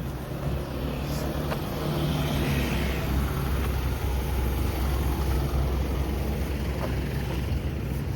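A vehicle in motion: a steady low rumble with a noisy hiss over it.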